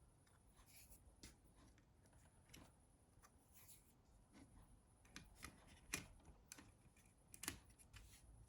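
Near silence broken by faint, scattered small clicks and taps of plastic mobile-phone parts being handled as the main board is fitted into the housing of a Nokia 6600, the loudest about six seconds in.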